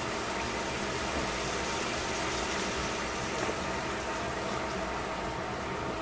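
Steady hiss of bean sprouts and vegetables cooking in a stainless pan on the stove, over a steady mechanical hum.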